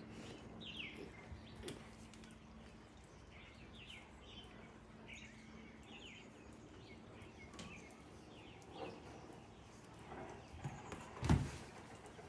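Small birds chirping in short, repeated falling calls throughout. Near the end comes one loud thump as a child kicks a hanging punching bag and lands on an inflatable air mattress.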